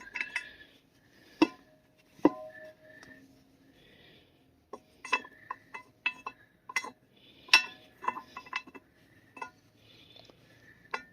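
Irregular metal-on-metal taps and clinks, a few ringing briefly, from tools and U-joint parts being handled and tapped at a motorhome driveline yoke while a new U-joint bearing cap is fitted dry as a friction fit.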